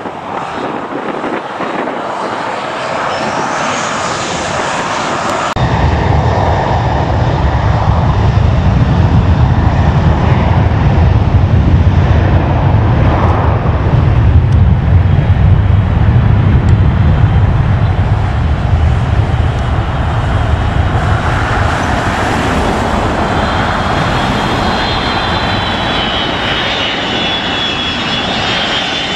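Delta Boeing 757 landing low overhead: a loud, low jet rumble builds, then a high whine from the turbofan engines rises over it near the end as the airliner passes close. It opens with about five seconds of quieter jet noise with a rising whine, which cuts off abruptly.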